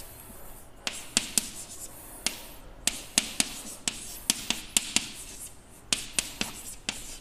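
Chalk writing on a blackboard: irregular sharp taps, a few a second, as the chalk strikes the board, with short scratchy strokes between them.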